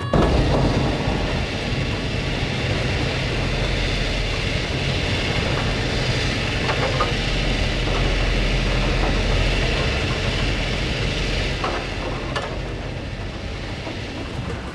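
Heavy excavator demolishing a concrete wall: a steady diesel engine rumble with grinding and clattering of broken concrete, and a couple of sharp knocks near the end.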